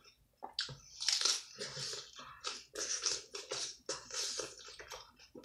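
Close-up crunchy chewing of a mouthful of raw salad with cucumber and lettuce, irregular crisp crunches one after another.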